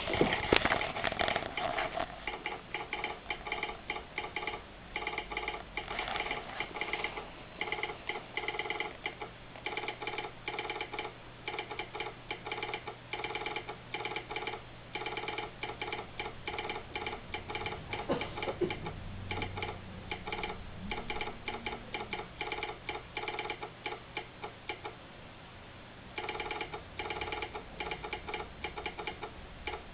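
Telegraph sounder clicking out American Morse code in quick, uneven groups of clicks, spelling out a railroad train order. A louder knock comes at the very start, and a pause of about a second and a half comes near the end.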